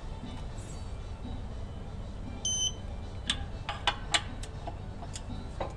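Wrench on the bolts of an Eaton clutch pressure plate being tightened to torque, giving a run of sharp clicks in the second half. A short electronic beep sounds about two and a half seconds in.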